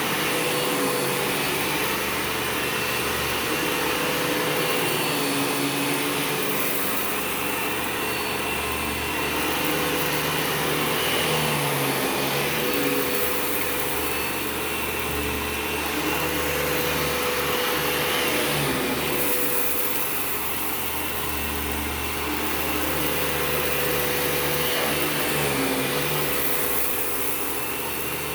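Eureka TheBoss 4D vacuum cleaner running steadily on carpet, a dense motor and airflow noise with a constant hum, its level rising and falling gently every few seconds.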